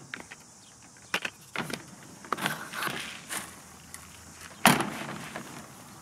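Handling noises of a metal bucket and a plastic feeder: scattered knocks and clatters, then a loud knock about three-quarters of the way in as the bucket meets the feeder opening, followed by a rattle of dry ostrich feed pouring out of the bucket into the feeder.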